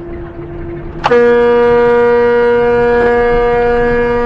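Truck air horn blown in one long, steady blast that starts abruptly about a second in.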